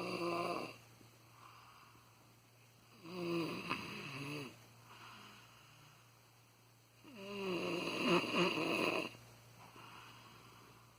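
A young man snoring in his sleep: long, rasping snores on each breath, roughly every four seconds. One tails off within the first second, then two full snores come about three and seven seconds in.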